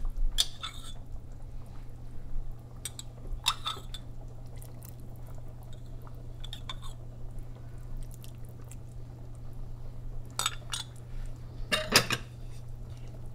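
Spoon clinking against a cooking pot, with some liquid sounds, as saffron water is added to a stew and stirred: a few separate clinks scattered through, the loudest near the end, over a steady low hum.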